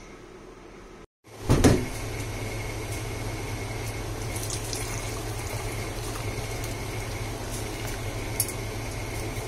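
A sharp knock about one and a half seconds in, then a steady hiss with a low hum. Near the end, hot rose hip tea and its boiled rose hips are poured from a steel saucepan through a wire mesh strainer into a mug.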